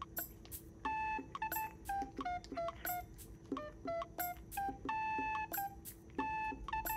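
Background music: a bouncy tune of short, bright beep-like notes, over a low steady hum.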